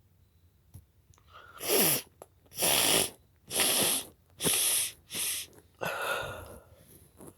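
A rapid fit of six sneezes in about five seconds, each a short burst, the last one trailing off, brought on by black pepper.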